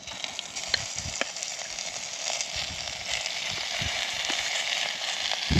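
Yak steak sizzling in hot butter in a small pot on a camp burner: the sizzle starts suddenly and grows steadily louder, with a few small pops and knocks.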